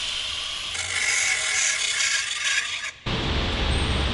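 Angle grinder cutting through a power steering line on a steering rack: a harsh grinding hiss that grows rougher about a second in. It stops abruptly about three seconds in, giving way to a low rumbling noise.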